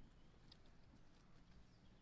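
Near silence, with a few faint crackles of dry leaf litter as monkeys walk over it.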